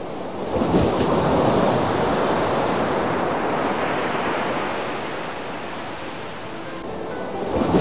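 Rough sea: waves churning and breaking in a steady rush of noise, easing a little in the middle before a wave surges up near the end.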